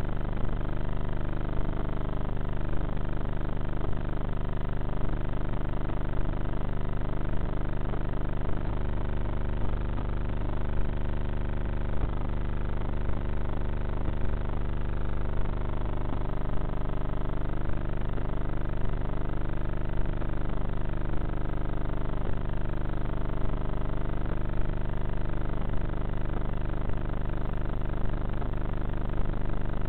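Electric motor and propeller of a Bixler foam RC plane running steadily in flight, heard through its onboard camera's microphone. The pitch drifts slowly up and down with the throttle, and a small click comes about once a second.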